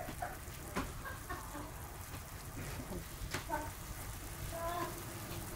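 Escabeche sauce simmering in a wok: faint bubbling with a few sharp ticks, over a low hum. A few faint short calls sound in the background.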